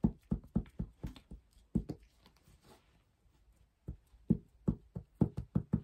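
Ink dabber bottle tapped repeatedly onto a small black board to coat it, in quick light taps about four a second, with a pause of nearly two seconds in the middle before another run.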